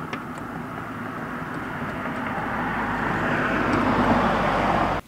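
Rushing engine noise of a passing vehicle, growing steadily louder over several seconds, then cut off suddenly.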